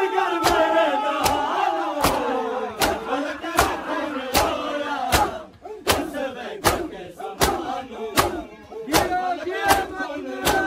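A procession crowd beating their chests in matam, one sharp slap in unison about every three-quarters of a second, with the crowd chanting and calling out between the strokes.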